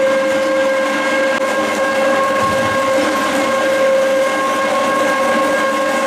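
Industrial electric meat mincer running with a loud, steady whine of constant pitch while beef is fed through it.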